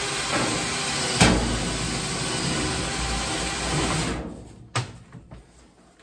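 Dryer vent cleaning blower running with a loud, steady rush of air and motor hum, then switched off and winding down about four seconds in. A sharp knock comes a little after one second and another just before five seconds.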